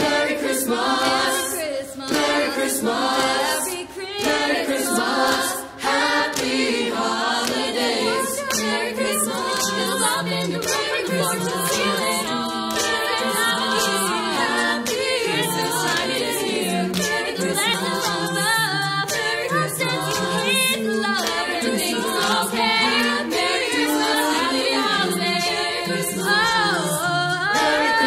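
An a cappella vocal group singing a song, several voices in harmony with no instruments.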